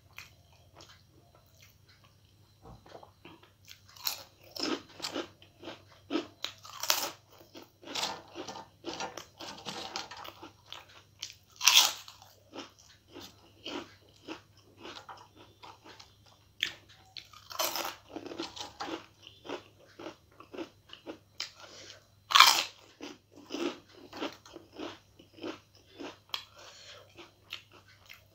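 Crisp fried papad being bitten and chewed, a run of crunches that starts after a few quiet seconds. Three bites crack noticeably louder than the rest.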